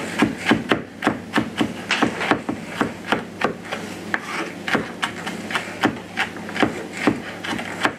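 Kitchen knife chopping a fresh chilli finely on a plastic chopping board: quick, uneven taps of the blade on the board, about three a second.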